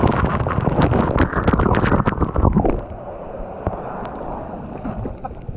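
Water rushing and a body sliding fast down a free-fall waterslide tube: a loud, rough rush with scattered knocks. About three seconds in it drops suddenly to a quieter splashing hiss as the rider skids out into the water-filled runout.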